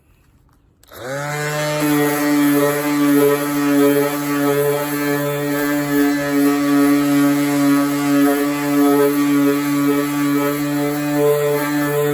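A power sander starts about a second in, spinning up quickly, then runs steadily with small changes in pitch as it is worked across a car body panel, sanding off clear coat.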